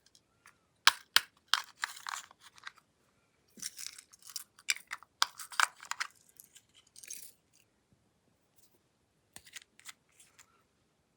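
Glossy slime being pressed and stretched by hand, giving sharp pops and crackly clicks in bunches, with a quiet pause of about two seconds before a last short bunch near the end.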